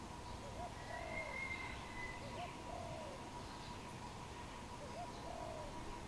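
Spotted dove cooing: three phrases, each a short coo followed by a longer one, about every two and a half seconds.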